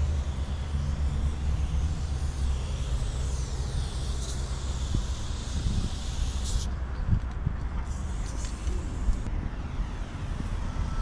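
Aerosol spray-paint can hissing in a long spray that cuts off sharply about two-thirds of the way through, followed by a shorter spray, over a steady low rumble of wind on the microphone.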